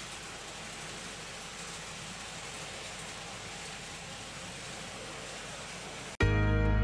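Steady, even rushing noise of a model railway running, then background music starts abruptly about six seconds in.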